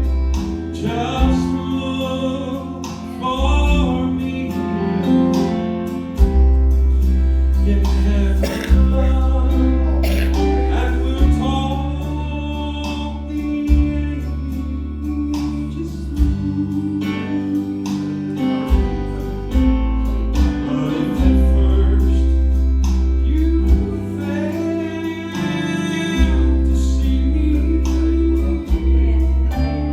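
Southern gospel quartet singing with instrumental accompaniment: male and female voices over guitar and a steady bass line.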